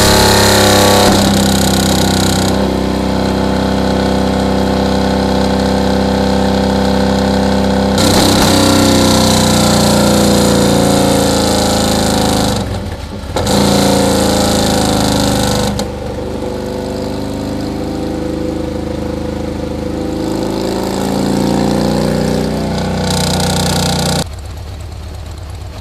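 Harley-Davidson 103 cubic inch V-twin running while being tuned. It is held at raised revs that step up and down with the throttle, dips briefly about halfway, and drops back to a lower, quieter idle near the end. The tuner reads the run as too hot, running lean.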